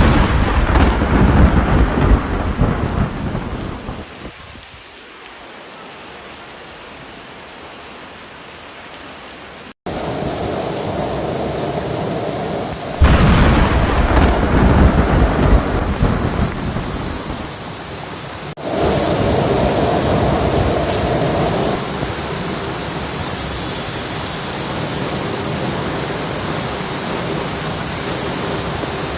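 Thunderstorm: a roll of thunder at the start and another about 13 seconds in, each fading over several seconds, over steady heavy rain. The rain sound changes abruptly twice where recordings are spliced together.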